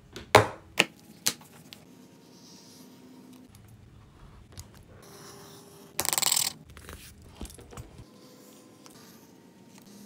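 A few sharp metallic clinks as a small metal cup is set down on the cutting mat, then a quiet scrape of a leather edge beveler trimming a wallet piece's edge. A single louder, short rasp comes about six seconds in.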